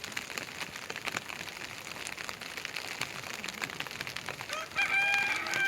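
Rain falling steadily: an even patter with many separate drops ticking on surfaces. Near the end a loud call with a steady, held pitch rises over it for about a second.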